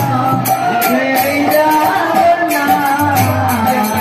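Devotional singing with a quick, steady percussion beat.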